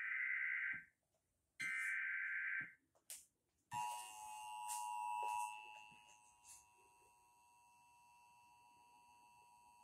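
Emergency Alert System SAME header: two digital data bursts, each about a second long, ending the three-burst header. About four seconds in, the two-tone EAS attention signal begins, loud at first and then steady at a lower level, announcing a flash flood warning.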